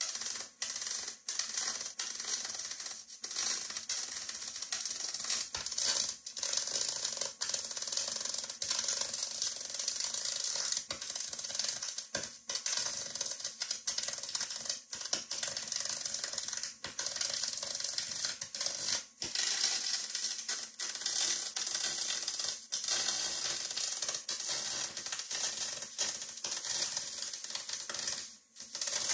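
Spool-gun MIG welding on 16-gauge aluminum sheet: the arc's steady crackling hiss, laid down in runs broken by brief stops every second or two.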